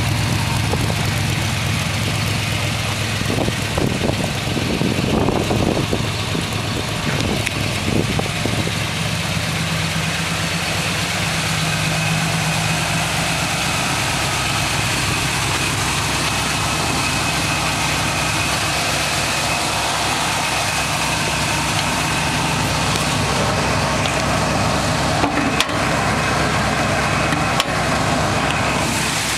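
Chevrolet V8 engine of a custom 1954 Chevy half-ton pickup idling steadily, with a few brief knocks and rustles in the first part.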